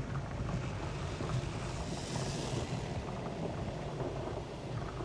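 Automatic car wash heard from inside the car's cabin: a steady low rumble with water and foam washing over the windshield and roof. A louder hiss swells briefly about two seconds in.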